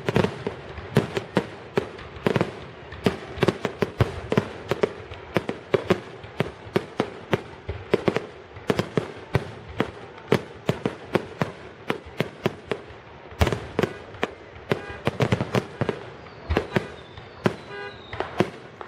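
Fireworks grand finale: a rapid, continuous barrage of aerial shell bursts, several bangs a second.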